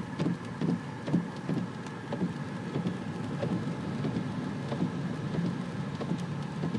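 Steady wash of rain and water heard from inside a moving car on flooded roads, with irregular low splashes and the car running underneath.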